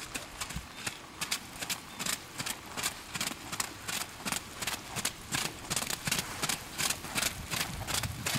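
Welsh pony's hooves striking wet arena footing at a trot, an even beat of about three steps a second.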